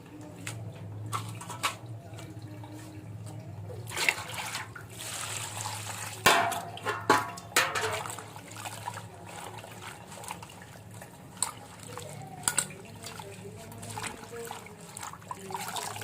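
Mullu murungai leaves being rinsed by hand in water: irregular splashing and dripping, with a few sharp knocks of the vessel and a steady low hum underneath.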